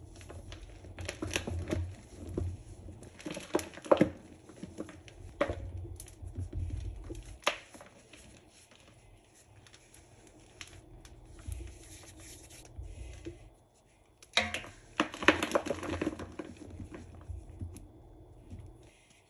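Hands crushing chunks of a dried Comet cleanser slab into loose Comet powder: crisp, crumbly crunches in irregular clusters. There is a softer stretch in the middle, and the densest, loudest burst of crunching comes about fifteen seconds in.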